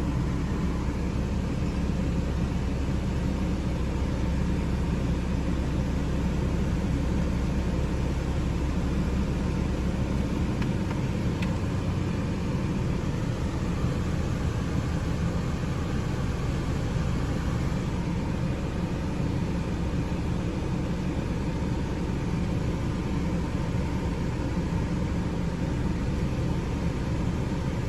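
Steady low mechanical hum with a slight change in its lowest tone about ten seconds in.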